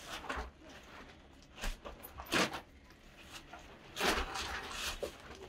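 Rustling and shuffling of clothing and feet as people move about on a carpeted floor, heard as a few short, irregular bursts of noise.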